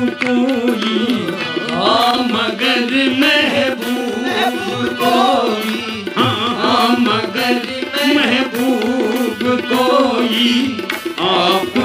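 Devotional na'at song: a sung melody over a steady held drone, with tabla strokes throughout.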